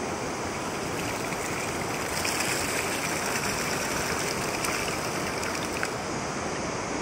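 Water pouring and splashing out of a cement pipe as it is lifted from a shallow stream, over the steady rush of the stream. The pouring is loudest from about two seconds in until about six seconds in.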